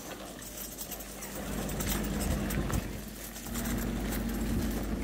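Footsteps on a paved promenade with faint clinks, over a low steady rumble that swells about three and a half seconds in.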